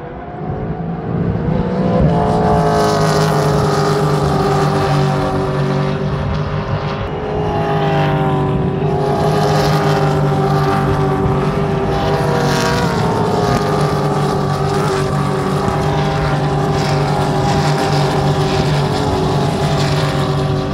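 Racing car engines at full throttle going around the circuit, several cars' engine notes overlapping in a loud, steady scream. The pitch climbs about two seconds in and again about seven seconds in, then holds.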